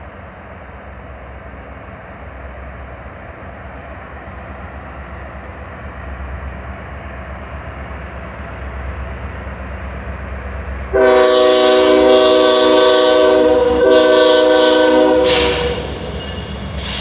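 Two Union Pacific diesel freight locomotives approaching, their engine rumble growing steadily louder. About eleven seconds in, the lead locomotive sounds its air horn, a chord of several steady notes held for about four and a half seconds with a very short break near the end, and then the engine rumble goes on.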